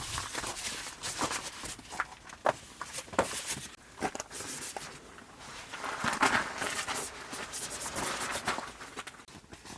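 Irregular clicks, light knocks and rustling, as of camping gear being handled and moved about.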